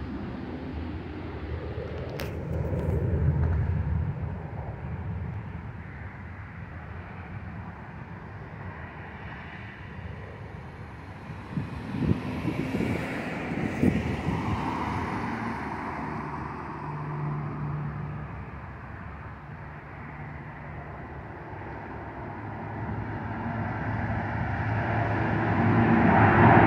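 Outdoor road-traffic rumble, with louder swells of passing vehicles about two seconds in and again around twelve to fourteen seconds. In the last few seconds the jet engines of a twin-engine airliner passing low overhead grow steadily louder.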